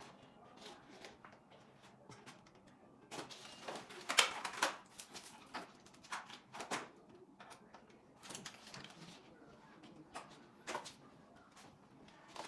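Intermittent clicks, rattles and rustles of a fat-tire electric bike's parts and packing material being handled during assembly, busiest and loudest about four seconds in.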